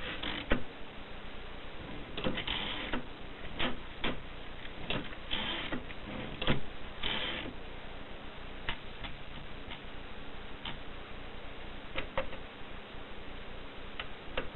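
Mercedes Selecta typewriter being worked: irregular sharp key strikes with a few short clattering bursts from the mechanism. They come thick in the first half, then thin out to a few scattered clicks.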